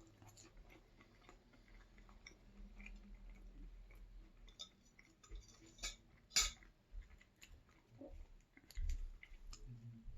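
A person chewing food close to the microphone: soft, wet mouth clicks and smacks, with a couple of sharper crunches about six seconds in.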